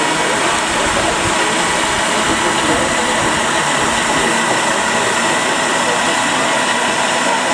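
Steady background chatter from a crowd of onlookers over a continuous mechanical drone, with a faint, unchanging high whine.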